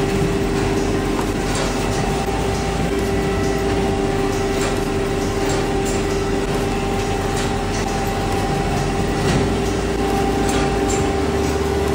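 Steady machine hum with a constant low tone and a few faint clicks.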